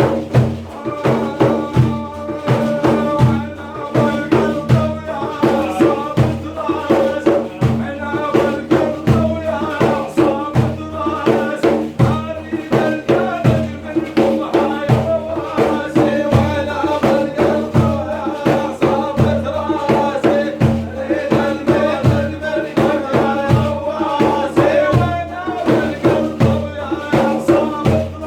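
Sufi dhikr chanting: a lead voice singing religious praise over a steady beat of hand-struck frame drums.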